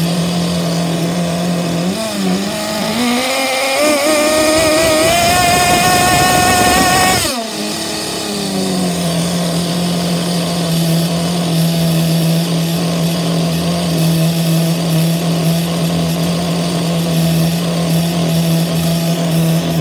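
HPI Bullet ST 3.0 single-cylinder nitro glow engine running on the bench. It idles steadily, is revved up about two seconds in, climbing in pitch for about five seconds, then drops back sharply to a steady idle. The engine is freshly started and not yet tuned.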